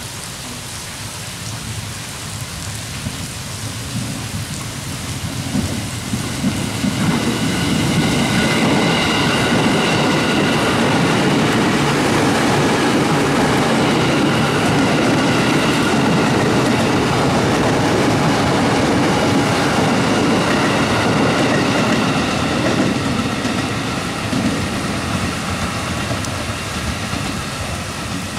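Heavy rain falling steadily while a KRL electric commuter train passes close by: its rumble builds over a few seconds, holds for about fifteen seconds with a steady high whine on top, then fades.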